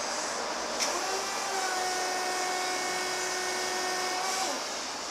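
1992 Crown electric forklift's hydraulic pump motor lifting the mast: a click as it switches in, then a whine that rises to a steady pitch and falls away near the end as the lift stops.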